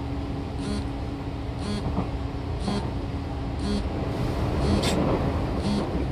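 Interior running noise of a Seibu 2000 series electric train: a steady hum with a constant low tone, a short click about once a second, and a rushing swell about four to five seconds in.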